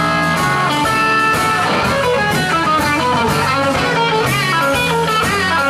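Live electric blues band playing an instrumental: electric guitars over electric bass and drums.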